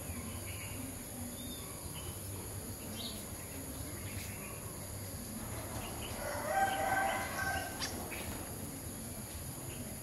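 A rooster crowing once, about six seconds in, over scattered short chirps of small birds.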